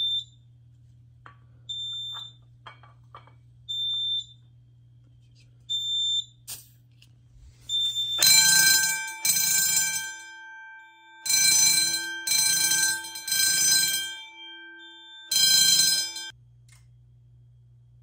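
Short high beeps about every two seconds. About eight seconds in, the EST QuickStart QS1 fire alarm system's notification appliances go into alarm, sounding loud bursts in the temporal-3 (code 3) evacuation pattern. They stop suddenly about two seconds before the end.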